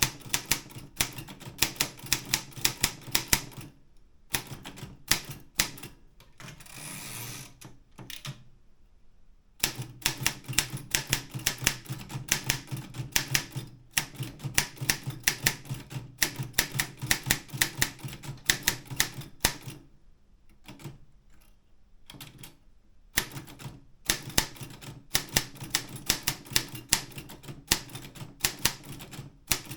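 Optima M12 manual typewriter being typed on: quick runs of sharp key strikes with a few short pauses. In one pause, about a quarter of the way in, there is a rasping sound lasting about a second.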